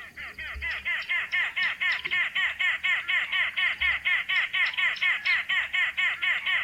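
Arrow-marked babbler calling: a fast, chattering run of repeated harsh, cackling notes, about five a second, growing louder over the first second and then steady.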